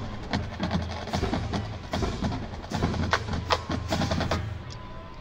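Marching band drumline playing a percussion cadence of sharp stick strikes and clicks in a quick rhythm, which stops about four and a half seconds in.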